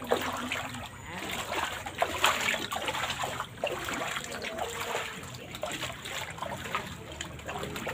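Small, irregular splashes and trickling in standing floodwater.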